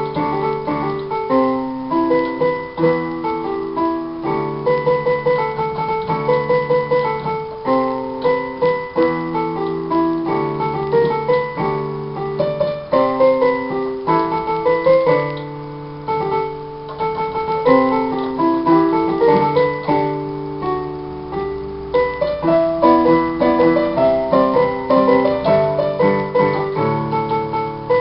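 Portable electronic keyboard played with a piano voice, both hands: chords held in the lower range under a moving melody line, with a short softer passage about halfway through.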